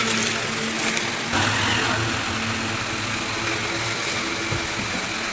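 Small electric fan motor running steadily, a low hum under a rush of moving air, growing a little louder about a second and a half in.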